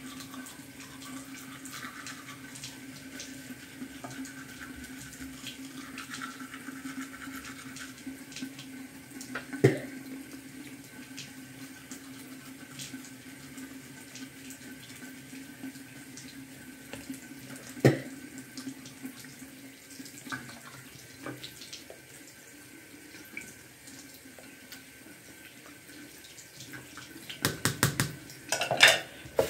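Teeth being brushed with a manual toothbrush: faint scrubbing over a steady low hum, with two sharp knocks in the middle and a burst of clatter at the sink near the end.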